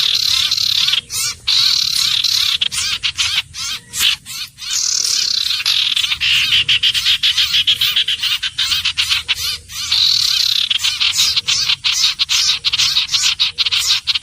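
Iora calling: a fast, continuous stream of high chattering notes, with a few brief breaks.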